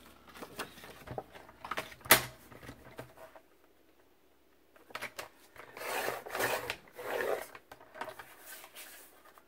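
Sheets of patterned paper being handled and slid into place on a paper trimmer: light clicks and taps with one sharp click about two seconds in, then paper rustling and sliding from about five to seven and a half seconds.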